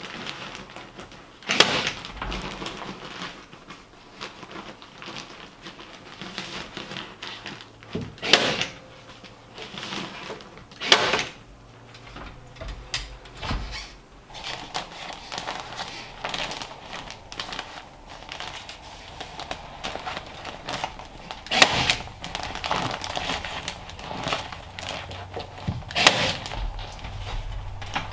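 Staple gun firing staples through the paper facing of fiberglass insulation batts into wooden rafters: sharp single snaps several seconds apart, five of them loud, with rustling and handling of the batts between shots.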